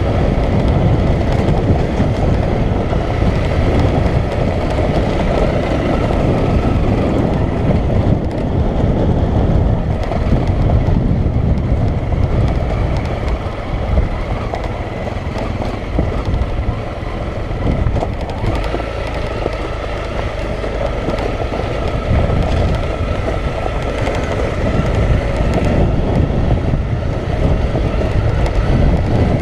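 Single-cylinder dual-sport motorcycle engine running as the bike rides over a rough, rocky dirt track, with wind on the helmet camera's microphone. It is steady throughout, dropping off a little for a few seconds past the middle.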